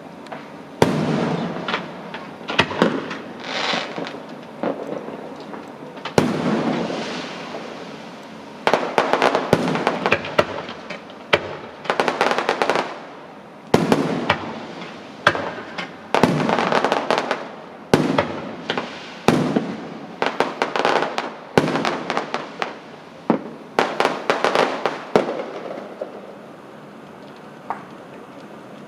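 Fireworks going off: a long run of sharp bangs and crackling bursts, many in quick clusters, which die away a few seconds before the end.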